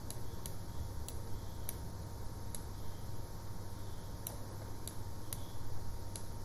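Faint, sharp clicks at uneven spacing, a little more than once a second, from a computer mouse button pressed and released for each pen stroke, over a low steady hum.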